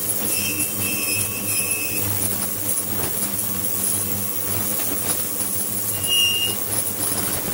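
Flow-type ultrasonic shower running: water streaming from the nozzle onto a metal plate in a tank, over a steady hum from the equipment. A high squealing tone comes in twice, once for over a second near the start and once briefly near the end.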